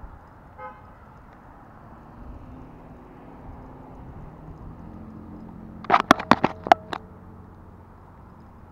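Steady outdoor background of distant road traffic, with a quick run of about seven sharp clicks about six seconds in.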